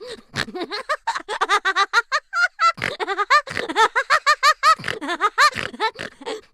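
FurReal Rock-A-Too toy parrot's recorded voice giggling and babbling in a rapid run of short, high, bending syllables.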